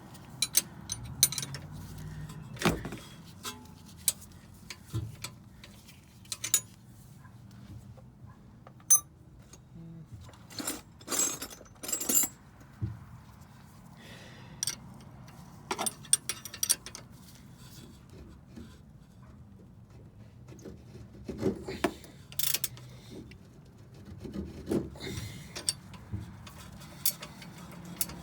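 Hand tools clinking and scraping on metal in irregular, separate knocks and clicks as a 14 mm wrench works the nut of a car's sway bar end link.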